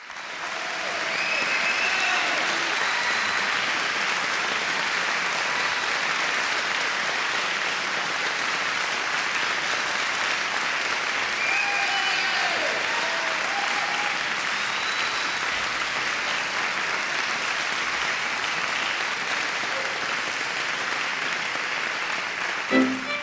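Audience applauding steadily, with a few faint voices among the clapping.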